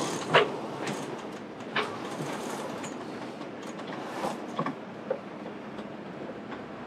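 Water rushing along a sailboat's hull under way, with wind, broken by a sharp knock just after the start and a few fainter clacks of deck gear and rigging.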